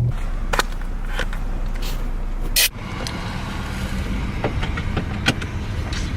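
Car running, heard from inside the cabin as a steady low rumble, with a few short clicks and knocks from inside the car, the loudest about two and a half seconds in.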